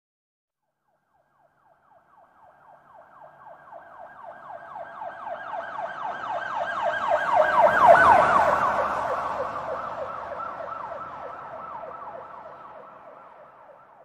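Police car siren in a fast yelp, each wail falling in pitch, several per second. It grows steadily louder to a peak about eight seconds in, with a brief rush of noise at the loudest point, then fades away.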